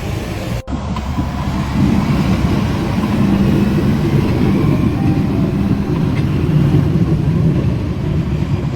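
Heavy snow-clearing machine's engine running steadily under load, its sound mostly low. It drops out for an instant just over half a second in, then grows louder about two seconds in.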